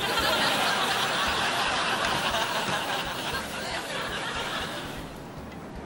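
Canned audience laughter from a laugh track, starting at once and fading away after about five seconds.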